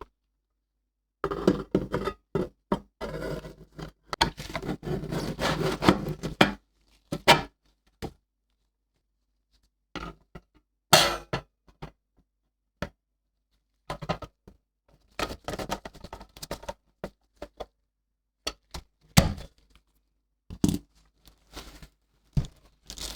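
Handling noises from work on a computer power supply: irregular knocks, clicks and scraping, dense for the first few seconds, then scattered sharp clicks and knocks.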